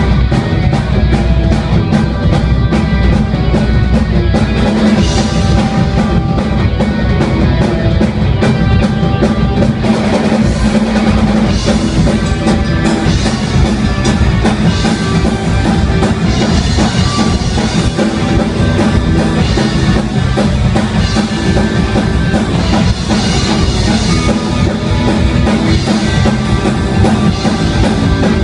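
Rock band playing an instrumental with a driving drum kit, kick drum and cymbals over sustained guitar and bass.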